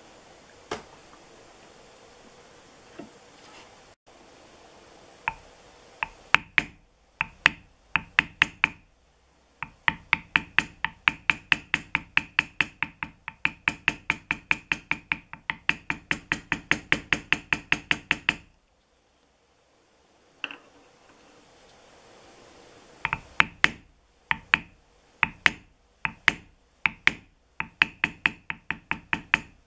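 Small mallet tapping a leather beveling stamp, bevelling along the cut outlines of a tooled leather picture. Sharp taps come in runs: a few scattered at first, a long even run of about four taps a second through the middle, a pause of a few seconds, then more taps near the end.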